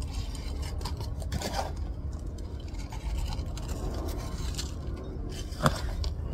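Loose, gritty succulent potting mix being added by hand into a pot around a plant's roots: scattered scrapes and small clicks of grit, with one sharper click about five and a half seconds in, over a steady low rumble.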